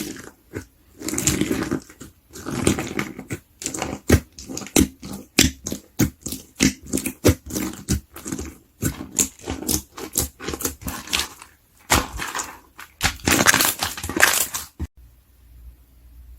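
Slime being squeezed and pressed by hand: a dense, irregular run of sticky pops and crackles, with a few longer squishing stretches, the longest near the end. It stops shortly before the end.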